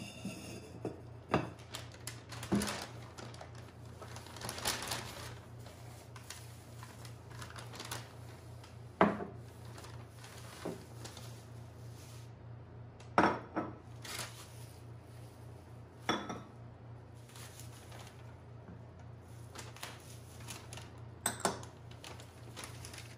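Ceramic, terracotta and glass items set down on a hard tabletop one at a time: terracotta flower pots stacked into each other, a ceramic mug, a porcelain teacup on its saucer and a small glass, giving several sharp knocks and clinks. Between them a plastic shopping bag rustles as the items are taken out.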